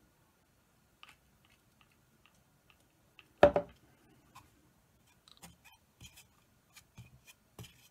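Small clicks and taps of plastic being handled while PVC glue is dabbed onto a 3D-printed plastic part with the glue pot's brush, with one sharp knock about three and a half seconds in.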